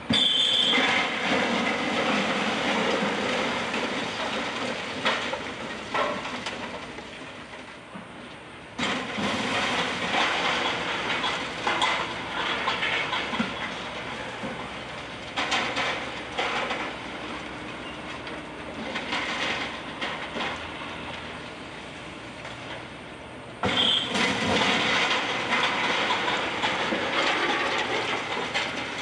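Wrecking ball smashing into the building three times (at the start, about nine seconds in, and near the end), each hit followed by several seconds of rubble crashing and clattering down and slowly dying away. The first and last hits carry a brief high screech.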